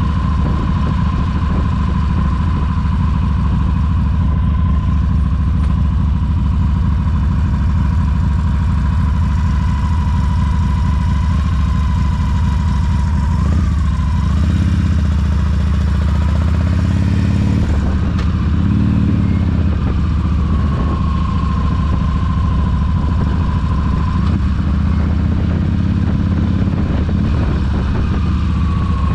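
Cruiser motorcycle engine running while riding along at steady speed, with a steady high whine over it. About halfway through, the engine note dips and rises again for a few seconds as the speed changes.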